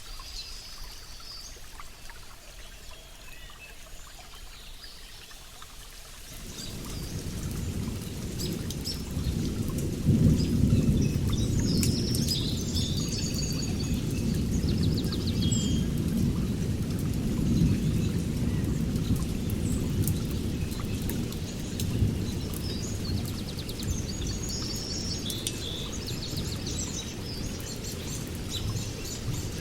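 Wild birds chirping with short, high calls. About six seconds in, a deep rumbling noise swells up beneath them and stays, louder than the birds.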